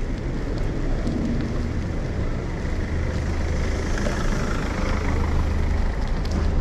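Steady low rumble of wind buffeting the microphone of a bicycle-mounted camera, with the hiss of the tyres rolling over asphalt as the bicycle rides along.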